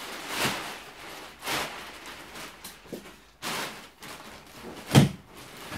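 Plastic wrapping rustling and crinkling in several swells as it is pulled off a memory foam mattress, with a single sharp thump about five seconds in.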